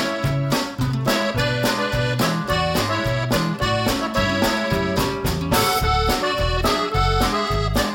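Lively background music: an accordion melody over a steady, bouncing bass beat.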